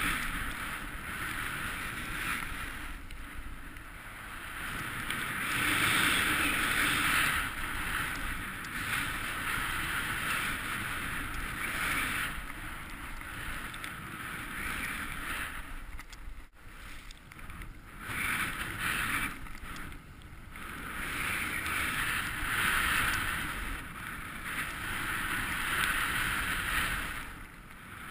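Snowboard sliding through deep powder snow, a rushing hiss that swells and fades every few seconds with each turn, over a low rumble of wind on the microphone.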